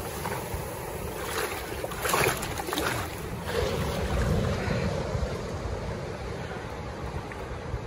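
Wind rumbling on the microphone over the wash of sea water, with a brief louder surge about two seconds in and a swell around four to five seconds.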